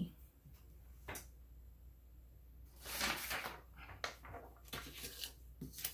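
Quiet handling sounds: a sharp click about a second in, a sheet of paper rustling around three seconds in as it is picked up, then a few light taps and clicks.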